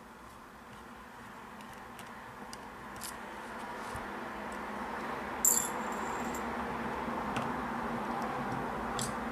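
Small metal parts and tools being handled during revolver disassembly: scattered light clicks, and one sharp metallic clink about five and a half seconds in that rings briefly, like a small steel part set down. A steady background hum runs underneath.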